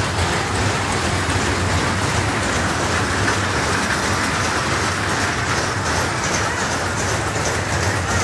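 Steady mechanical rumble and rattle over a constant low hum: fairground ride machinery running without a break.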